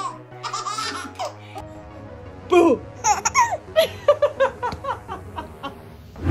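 Babies laughing: a short run of giggly laughs about half a second in, then, just after a spoken "Boo!", an infant's excited laughing squeals in quick bursts that fall sharply in pitch. Background music plays underneath.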